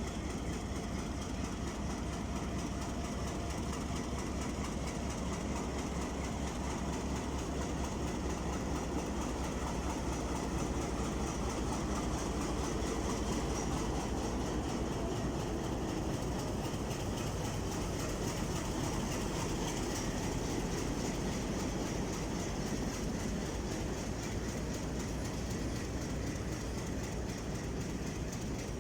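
Passenger train rolling steadily through the station, wheels clicking over the rail joints with a low, fast-pulsing rumble underneath.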